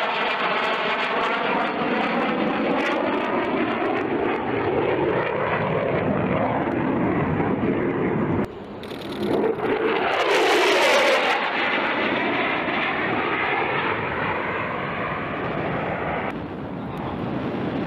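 F-16 fighter jet's engine noise as it flies past, a loud rush with a rising and falling whooshing sweep. The sound cuts off abruptly about eight and a half seconds in, then returns louder and brighter for a couple of seconds before easing off as the jet moves away.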